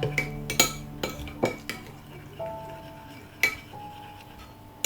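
Yeast being stirred into warm milk: a utensil clinks irregularly against the side of the container, with soft background music underneath.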